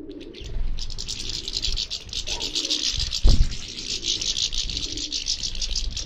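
A feeding flock of finches, mostly European goldfinches with siskins and greenfinches, twittering continuously in a dense, high chatter. A single low thump sounds a little after three seconds in.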